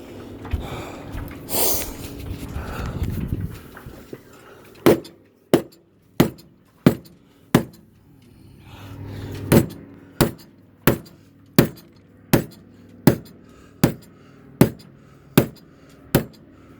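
Mallet blows driving a mahogany plug down into an epoxied hole in a boat deck. The strikes come steadily, about one and a half a second, each with a short ring, in two runs with a brief pause between them. Handling noise comes before the first blow.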